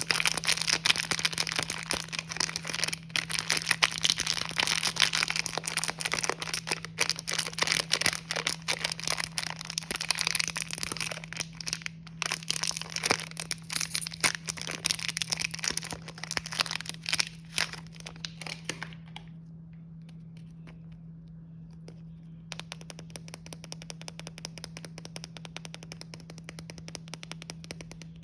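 Plastic snack packaging crinkling and crackling as it is handled and torn open: dense crinkling for most of the time, a pause about two-thirds through, then lighter crinkling. A steady low hum sits underneath.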